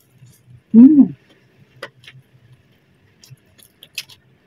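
A short hummed "mmm" with a rising-then-falling pitch about a second in, then scattered faint clicks of chewing a fried chicken wing.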